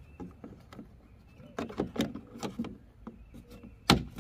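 Plastic trim cover beside a Toyota GR86 tail light being pressed back into its clips by hand: a scatter of small plastic clicks and knocks, with one sharper, louder click near the end as a clip seats.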